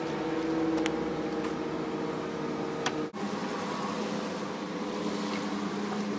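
A steady mechanical hum with a few faint clicks; the hum briefly drops out about three seconds in and comes back at a slightly different pitch.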